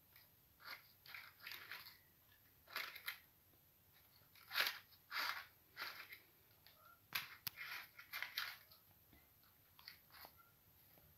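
Crinkly cellophane pom-pom toy rustling and crackling in short, irregular bursts as a kitten paws and bites at it.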